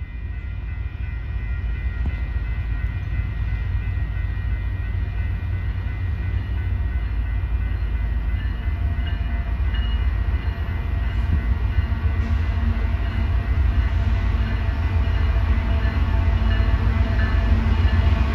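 A string of Union Pacific diesel locomotives hauling a double-stack container train approaches, their low engine rumble growing steadily louder.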